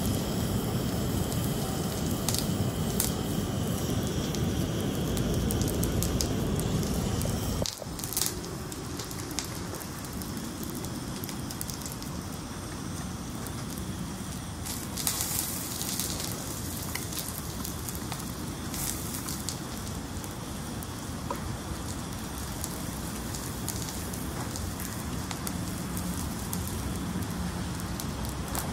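Single-burner camp stove on a gas canister burning under a skillet with a steady hiss. The hiss drops in level about eight seconds in, and a few light crackles and plastic-wrapper rustles come later.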